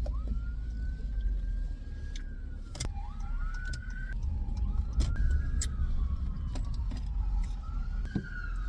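Car driving, with a steady low road rumble in the cabin, faint pitch glides rising and falling, and a few light clicks.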